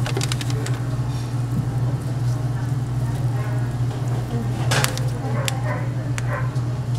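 A steady low machine hum with scattered sharp clicks and clatter, and faint voices in the background.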